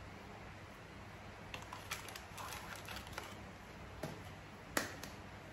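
Faint rustling and light tapping of a small spice packet being shaken as biryani masala is sprinkled out, starting about a second and a half in, over a low steady room hum. One sharp knock comes near the end.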